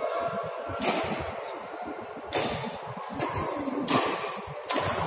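Badminton racket strings hitting the shuttlecock during a rally, about five sharp smacks at uneven intervals, each echoing in the large hall.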